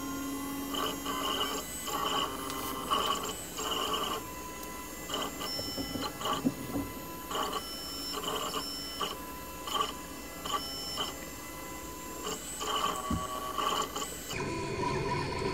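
RB3 FDM 3D printer's stepper motors whining in short stretches at changing pitches as the print head traces the first-layer outline. A steady fan whir runs underneath.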